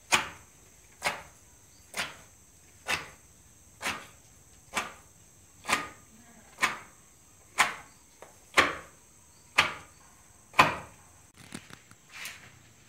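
Long pestle pounding Robusta coffee cherries in a wooden mortar (lesung) to loosen their skins: a dozen sharp knocks, about one a second, which stop near the end.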